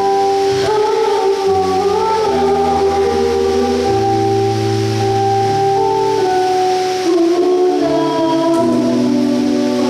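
A girl singing a solo into a microphone over music of held, organ-like keyboard chords and a bass line that changes every second or two.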